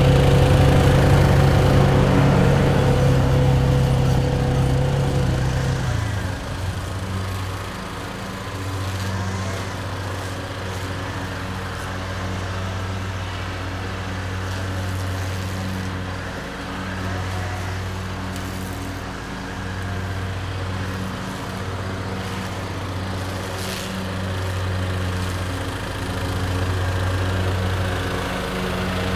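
Lawn mower engine running steadily while cutting grass. It is louder for the first six seconds or so, then drops back to a lower, wavering drone.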